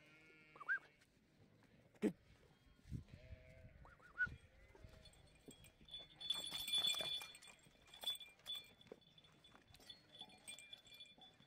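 Sheep and lambs bleating now and then, short calls with some rising in pitch. About six seconds in comes a louder, longer close-up scuffling noise.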